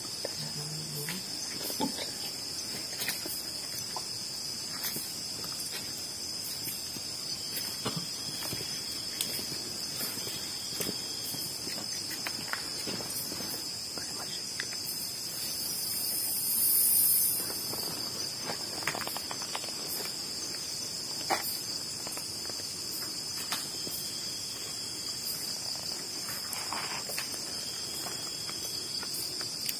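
Night insects, chiefly crickets, trilling in a steady high chorus, with scattered faint clicks. A louder, higher buzz rises and fades over about two seconds a little past halfway.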